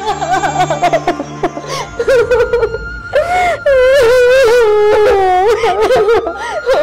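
Sad background music with a wordless, wailing vocal line. The voice wavers and holds long notes, loudest in the middle of the stretch.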